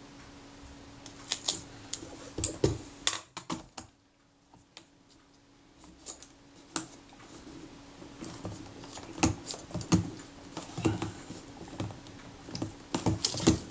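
Irregular clicks and taps of fingers and fingernails handling a Kodak Retina IIIS camera's metal body while a leatherette panel is pressed and rolled into place, with a short lull about four seconds in. A faint steady hum runs underneath.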